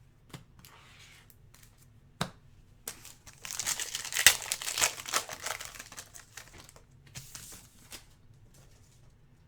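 Plastic wrapper of a trading-card pack being torn open and crinkled, a crackling rustle of about three seconds in the middle with a shorter one after it, preceded by a few light clicks of cards being handled.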